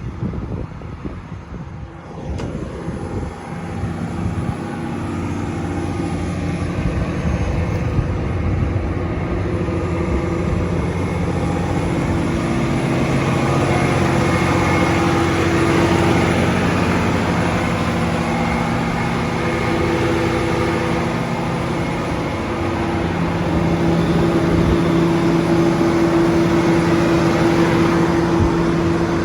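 John Deere 350D LC hydraulic excavator's diesel engine running steadily, growing louder over the first few seconds and then holding an even, humming drone.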